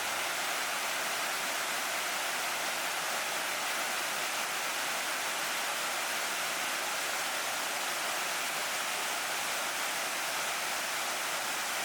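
Steady rushing water, an even hiss with little low rumble and no change in level.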